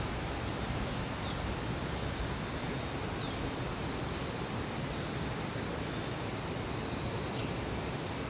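Steady rushing of flowing river water, with a constant thin high whine above it and a short falling chirp about five seconds in.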